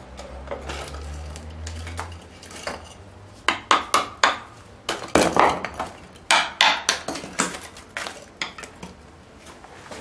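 Screwdriver poking and prying at the cracked refractory-cement body of a homemade foundry furnace, with many sharp clinks, scrapes and knocks as broken chunks of the shattered lining shift and clatter. The knocks come thickest from about three and a half to eight seconds in, after a low hum in the first two seconds.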